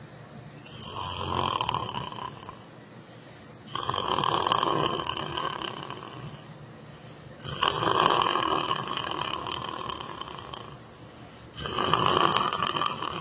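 A sleeper snoring: four long, noisy snores, one about every four seconds, with quieter breathing between them.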